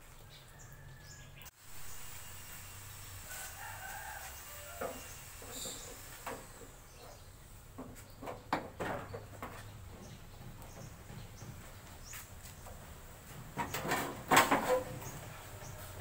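Scattered clicks and knocks from a screwdriver and hands working on a CRT television's plastic cabinet, with a louder cluster of knocks and scrapes near the end.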